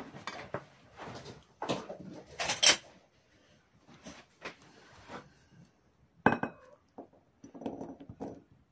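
A metal spoon clinking and scraping against an opened tin can and a glass bowl as canned sweet corn is spooned out, in irregular clinks and knocks, the sharpest a couple of seconds in and about six seconds in.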